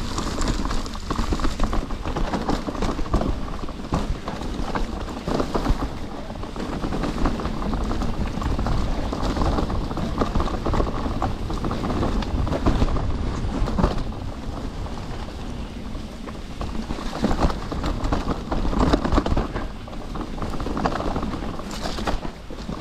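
Mountain bike descending a steep, rough trail: tyres rumbling over dirt and rocks, with a constant clatter of small knocks and rattles from the bike.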